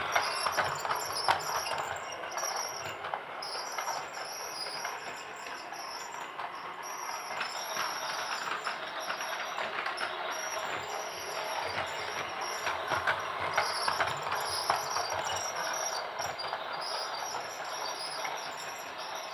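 Toy train running: a steady clatter dotted with many quick clicks.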